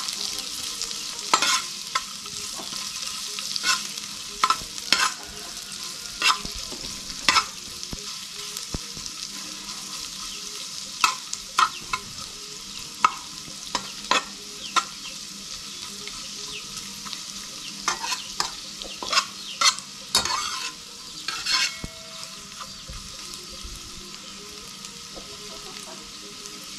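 Sliced green peppers sizzling in a little oil in a frying pan, with a metal spatula clicking and scraping against the pan as they are stirred. The clicks stop near the end, leaving only the steady sizzle.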